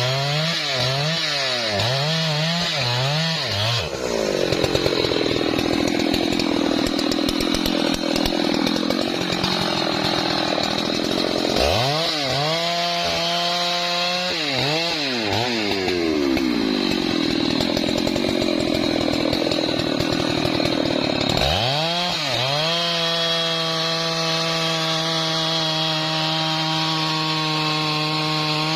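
Husqvarna 3120 XP large two-stroke chainsaw revving up and down a few times, then pulling down under load as it cuts through trembesi wood. It runs free at high revs in between, cuts again, and near the end holds a steady high-rev run at full throttle.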